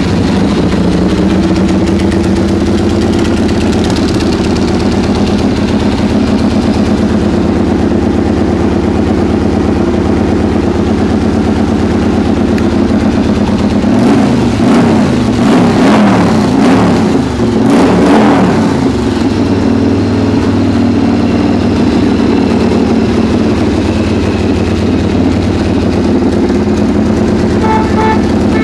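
1995 Yamaha XV1100 Virago's air-cooled V-twin engine idling steadily. About halfway through it is revved several times, rising and falling in pitch for a few seconds, then it drops back to a steady idle.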